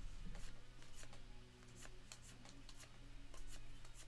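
Baseball trading cards being handled and flipped through by hand: a faint run of soft ticks and slides of card stock.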